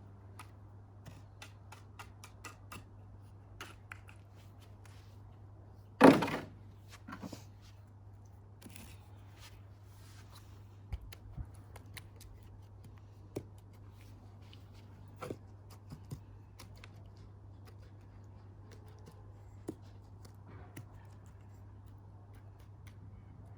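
Scattered small clicks and taps of tools and materials being handled, with one loud knock about six seconds in, over a steady low hum.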